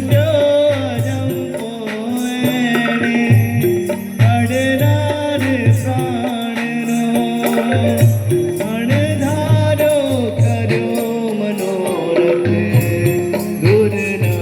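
A song: a melody bending in pitch over a regular low drum beat, with sharp percussion strikes repeating in a steady rhythm.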